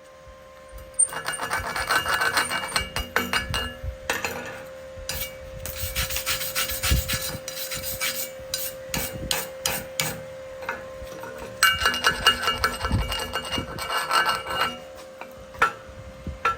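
Steel wire brush scrubbing slag off fresh stick-weld beads on steel plate, in three bouts of rapid strokes, over a steady faint hum.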